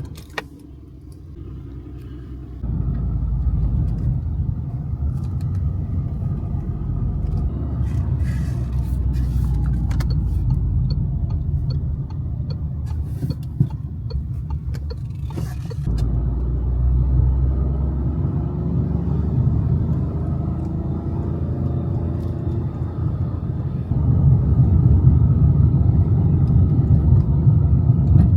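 Car driving: a steady low road-and-engine rumble that steps louder about three seconds in, again about halfway through, and once more near the end.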